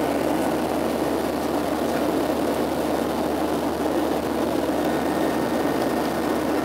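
Steady drone of a Boeing 737-700's CFM56 jet engines and rushing air, heard inside the cabin at a window seat over the wing as the airliner climbs out after takeoff.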